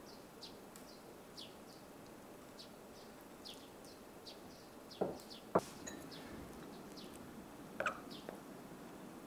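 Small birds chirping outside in a steady run of short, high chirps that fall in pitch, about two a second. A metal spoon clinks against a ceramic cup a few times from about five seconds in, the loudest sounds.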